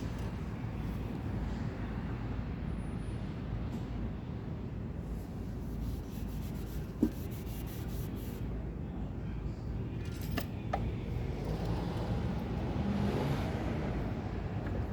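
Steady low rumble of vehicle engines in a car service workshop, with a short click about halfway and a few light metallic ticks soon after.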